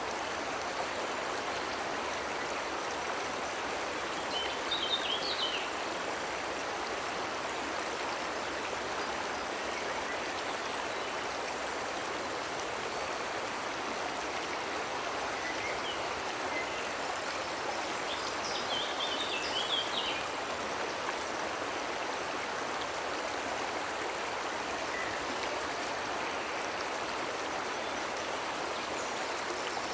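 Cascading water rushing steadily over rocks. A few quick bird chirps sound twice, about five seconds in and again near twenty seconds.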